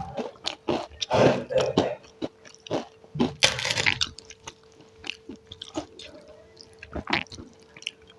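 Close-miked chewing and wet mouth sounds of someone eating, many small clicks and smacks, with one louder, longer noisy burst about three and a half seconds in. A faint steady hum runs underneath.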